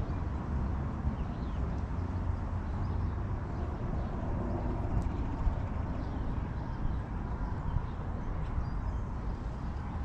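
Backyard ambience: a steady low rumble with faint, scattered bird chirps over it.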